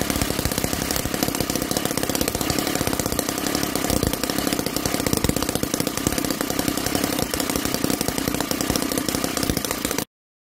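Enjomor Whippet 10cc single-cylinder four-stroke side-valve model engine running steadily on glow fuel, a fast even stream of firing knocks and valve clatter. It cuts off suddenly shortly before the end.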